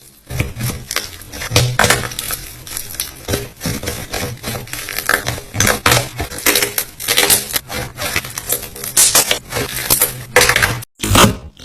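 Slime being worked by hand, making dense, irregular crackling and clicking pops. Near the end it stops briefly and starts again.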